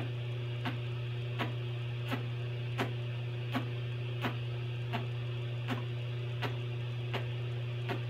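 Steady roar of a lampworking torch flame, with a light sharp tick repeating evenly about every 0.7 seconds.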